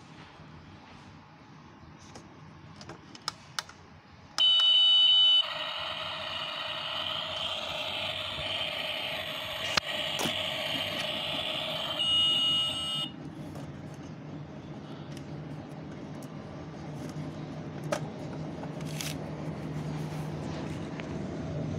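Battery-powered toy kitchen stove playing its electronic sound effect: a loud beep about four seconds in, then several seconds of a buzzy electronic sound, ending with a second beep. A low steady hum follows.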